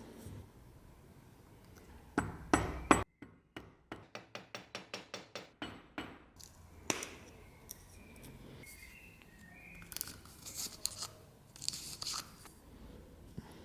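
Hand-tool work on a workpiece: a loud scraping stroke that cuts off abruptly, then a quick, even run of about a dozen sharp clicks, then scattered light taps, clinks and short squeaks.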